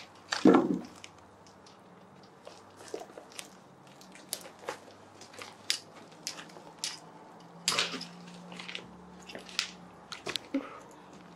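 Scattered small clicks and crunches in a small room, with a brief louder noise about half a second in and a cluster of clicks near eight seconds.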